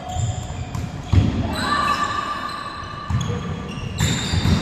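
Volleyball rally on a wooden court: sharp thuds of the ball being hit about a second in and again near the end as it is spiked into a block, with athletic shoes squeaking on the floor in between.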